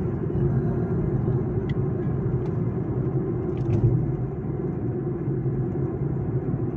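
Steady low rumble of road and engine noise inside a moving car's cabin at highway speed, with a few faint ticks.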